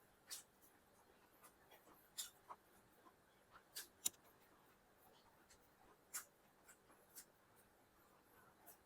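Quiet eating sounds of a person eating chicken biryani: scattered short clicks and smacks, about eight in nine seconds, at irregular intervals.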